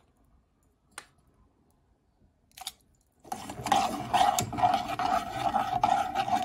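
Two light clicks, then from about three seconds in a metal spoon stirs briskly in a stainless steel saucepan of liquid, scraping and rattling against the pan's bottom and sides in a fast, continuous rasp.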